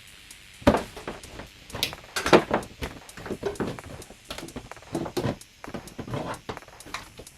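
Irregular knocks and clatter of hard objects being handled and set down, a dozen or so uneven hits with the loudest about two seconds in.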